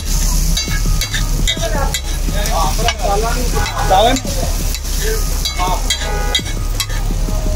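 Tawa chicken being fried in thick masala gravy on a large iron tawa: a metal spatula scrapes and clanks against the griddle again and again while the gravy sizzles, over a steady low hum.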